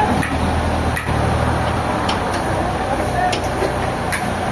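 Heavy sawmill machinery engine running steadily, with scattered knocks and clatter and a brief squeak a little past the middle.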